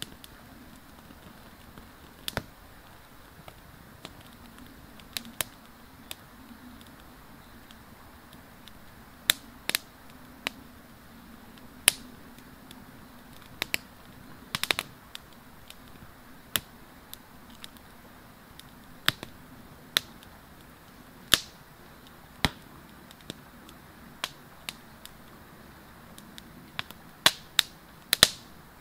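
Small wood fire crackling as it catches: scattered sharp pops and snaps, about one every second or two, bunching together near the end.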